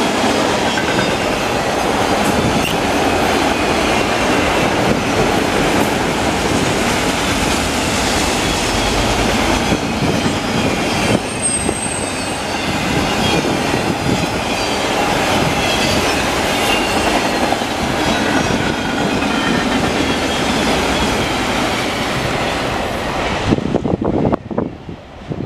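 Freight train of auto-rack cars rolling past at speed: a steady loud rush of steel wheels on rail, with a brief high wheel squeal about halfway through. Near the end the last car passes and the noise drops off sharply.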